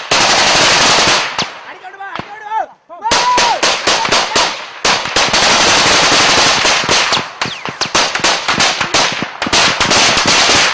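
Sustained automatic gunfire in a firefight: rapid bursts of shots running together, broken by a short lull about two seconds in.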